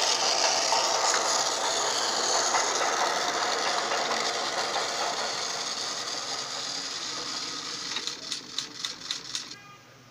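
Battery-powered toy train's small motor and gears whirring steadily as it runs along plastic track, slowly fading. Near the end comes a quick run of sharp clicks, then the sound cuts off suddenly.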